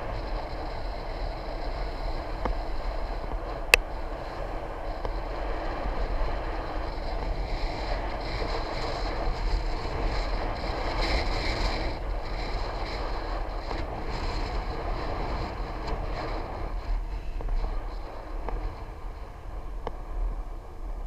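Steady wind and road noise while riding a bicycle, with one sharp click about four seconds in.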